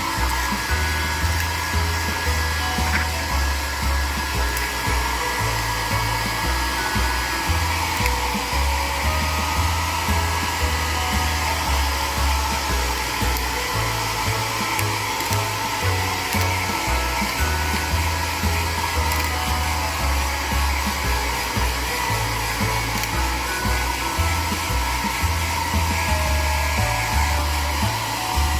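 Hair dryer blowing steadily, with an uneven low rumble from its airflow.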